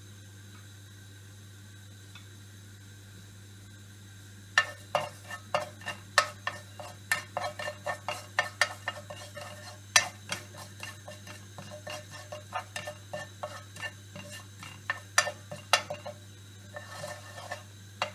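Wooden spatula stirring cumin seeds in hot oil in a non-stick frying pan, tempering them until they brown: quick irregular taps and scrapes against the pan begin about four and a half seconds in, over a light sizzle. Before the stirring there is only a steady low hum.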